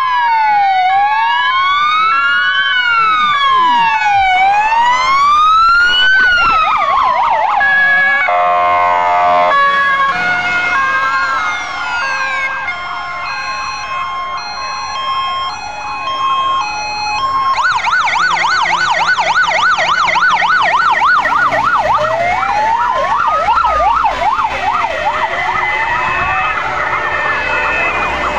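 Sirens of a convoy of fire engines sounding together, several at once: slow rising-and-falling wails, then alternating two-tone notes, and from about two-thirds through a fast yelp over the slower wails.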